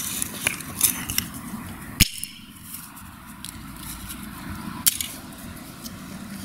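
Sledgehammer striking a small plastic object with a circuit board on a concrete slab: two sharp cracks, about two seconds in and near five seconds, with a few lighter clicks and crunches of plastic in the first second.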